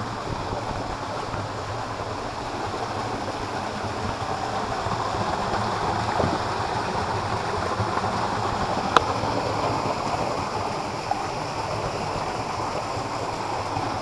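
Small waterfall pouring over rocks into a pool: a steady rush and splash of falling water. A single sharp click about nine seconds in.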